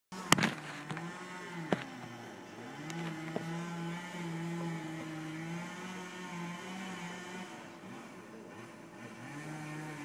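Stihl chainsaw running at high speed, its engine note sagging and picking back up as it cuts into a tree trunk. A few sharp knocks in the first two seconds.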